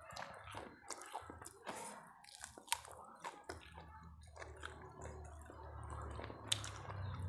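A person chewing food close to the microphone: irregular wet smacks and crunches, with two sharp clicks, one a little before the middle and one near the end.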